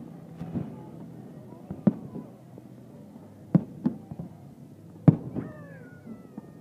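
Aerial fireworks shells bursting: sharp bangs about two, three and a half, four and five seconds in, with smaller pops between them.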